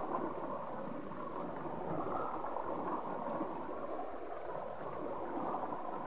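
Shallow rocky stream running steadily over and around stones, an even rush of moving water. A steady high-pitched insect chorus sits above it.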